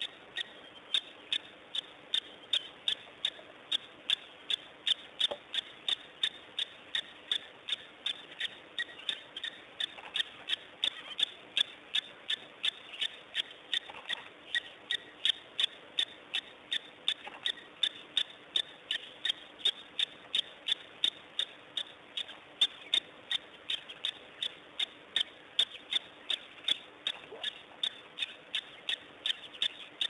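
A regular train of sharp clicks, about three a second, keeping an even pace, over a faint steady hum.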